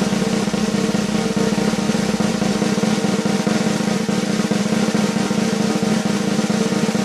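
A drum roll: fast, even strokes held steadily without a break.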